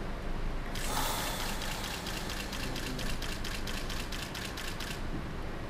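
A rapid run of camera shutter clicks, several per second, starting about a second in and stopping near the end, over a steady low electrical hum.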